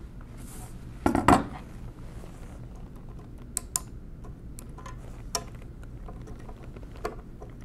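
Metal clinks and clicks from a mechanical calculator's keyboard frame and small parts being handled: a louder double clatter about a second in, then scattered light ticks as a spring is worked over a post with a small tool.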